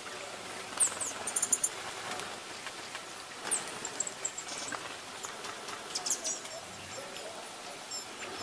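Small songbirds giving high, thin, very short calls. There are a few quick notes about a second in, a string of ticking notes around four seconds in, and more near six seconds, over a steady outdoor hiss.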